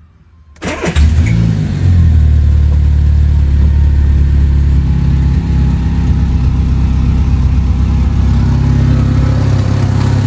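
Peugeot 106 Sport's petrol engine is cranked and catches about a second in, revs up briefly, then runs steadily. The owner says the exhaust leaks at the manifold joint.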